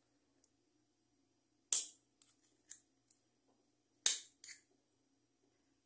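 Sharp snaps and clicks of a hand tool on the small metal parts of an electric fan motor's bushing housing: two louder snaps, each followed by a lighter click, with a few faint ticks between them, over a faint steady hum.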